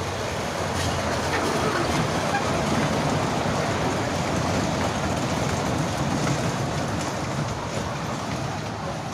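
The park's electric children's ride-on train running past with a steady rumble and rattle. It gets louder in the middle and fades near the end.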